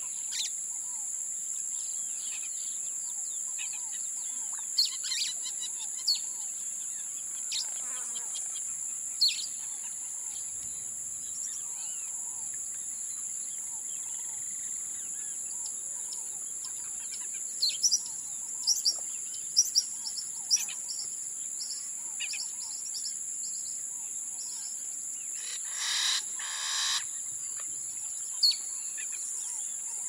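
Amazon rainforest afternoon ambience. A steady high-pitched insect drone runs under scattered short bird chirps. A quick flurry of chirps comes past the middle, and near the end two louder, fuller bird calls sound one after the other.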